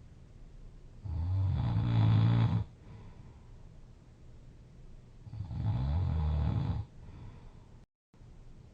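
A sleeping person snoring loudly: two long, rough snores about four seconds apart, each lasting about a second and a half, with quiet breathing between them.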